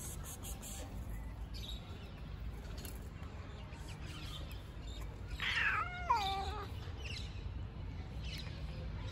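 A cat gives one drawn-out meow, about a second long and falling in pitch, a little past the middle.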